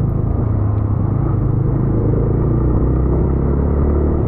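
Motorcycle running under way, heard from the rider's position as a steady low rumble of engine and wind without let-up.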